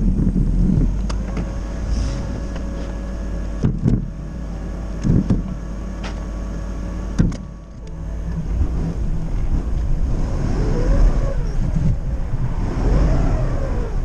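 Forklift engine running, with several sharp clunks in the first half and the engine pitch rising and falling over the last few seconds.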